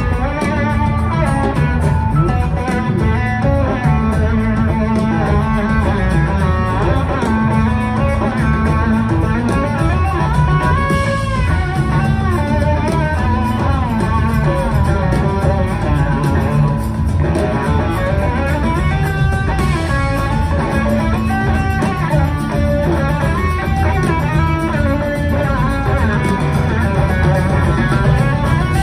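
Live blues-rock band playing an instrumental passage: electric guitar lead lines that bend and glide in pitch, over drums and bass.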